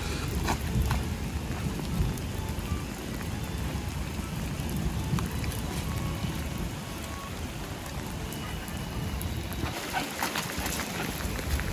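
Heavy rain falling steadily on wet pavement, with scattered sharp ticks of drops and splashes.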